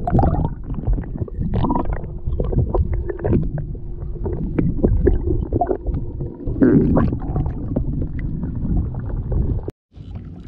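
Water sloshing and gurgling around a submerged camera moving through the sea: a muffled, low rumbling wash full of crackles and knocks, with a faint steady hum at times. It cuts off suddenly near the end, and quieter open-air sound follows.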